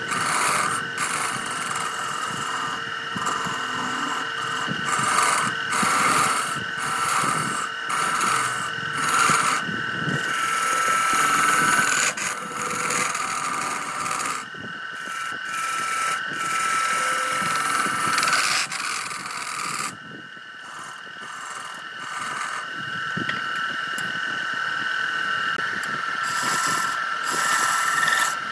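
Electric wood lathe running with a steady whine while a turning chisel cuts into the spinning wood, a rasping scrape in repeated passes. The cutting eases off about two-thirds through, then picks up again.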